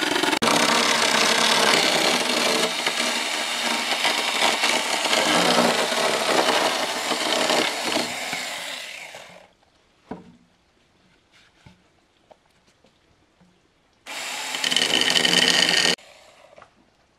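A power tool runs under load on wood for a long stretch, then dies away about two-thirds of the way through. A few faint knocks follow, and near the end the tool runs again in a short burst of about two seconds that stops abruptly.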